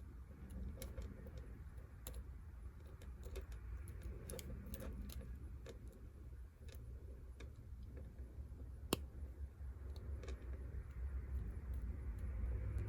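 Faint scattered clicks and light metallic tinkling of small jewelry parts, an opened jump ring and a necklace chain, being handled and hooked together. There is one sharper click about nine seconds in, over a steady low hum.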